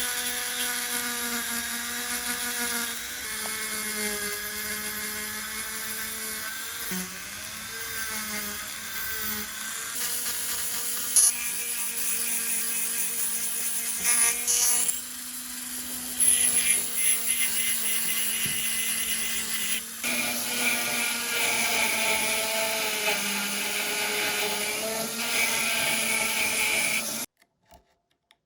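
Small high-speed electric power tool, a rotary tool or drill, running with a steady whine and its pitch wavering slightly as it works. It cuts off suddenly near the end.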